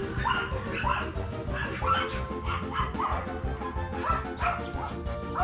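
Dogs barking over and over in short, high yips, about two or three a second, with background music running underneath.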